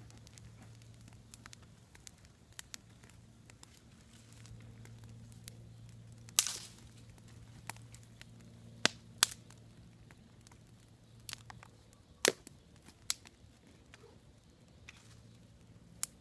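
Wood campfire burning, with sharp crackles and pops scattered irregularly every second or so; the loudest snaps come a little past six seconds in, twice around nine seconds and about twelve seconds in.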